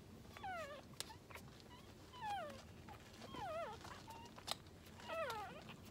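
Two-day-old mini Aussiedoodle puppy whimpering as it is handled: about four short, faint squeaky cries, each sliding down in pitch.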